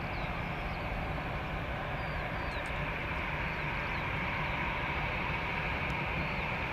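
Airbus A320-214's CFM56 turbofan engines at idle thrust as the airliner taxies: a steady high whine over an even rumbling hiss.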